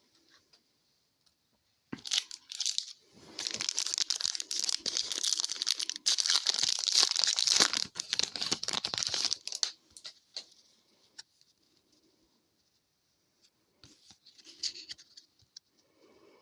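Wrapper of a 2023-24 O-Pee-Chee hockey card pack being torn open and crinkled: a stretch of tearing and crackling lasting several seconds, then a few lighter rustles near the end.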